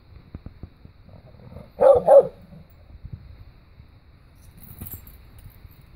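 A dog barks twice in quick succession about two seconds in.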